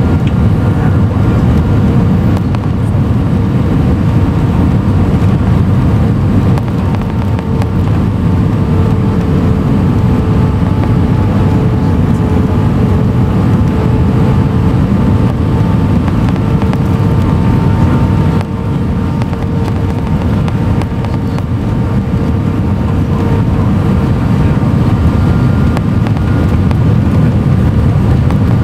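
Airbus A319 cabin noise on final approach, heard from a window seat over the wing: a steady roar of the engines and of air rushing past the extended flaps, with faint steady engine tones in it. The roar eases slightly about two-thirds of the way through.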